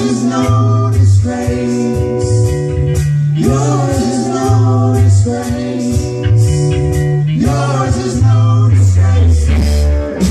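Live band playing a blues-rock tune: a stepping bass line, drums and keyboards, with long held melody notes that bend into pitch.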